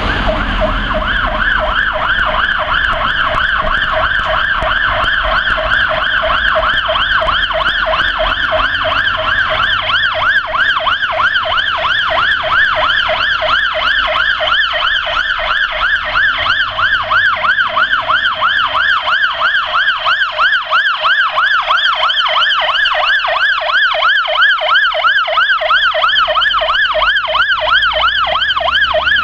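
Fire engine siren sounding a fast, continuous up-and-down warble as the aerial platform truck approaches on an emergency run.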